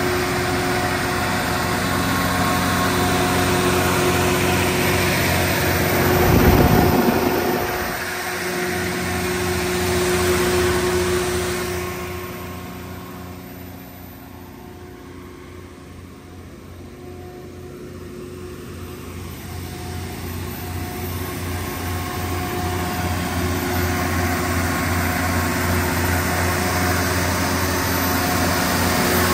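MTU DS180 diesel generator set running steadily, its John Deere 6068HFG85 inline six-cylinder diesel engine giving an even hum. The sound grows quieter for several seconds in the middle and comes back up near the end. A brief low whoosh about six seconds in.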